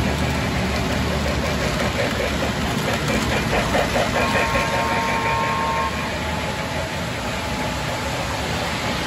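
Model trains running on a layout: a steady rumble of motors and wheels on track, with a rapid clicking ripple as a train passes, and a brief steady high tone about four seconds in.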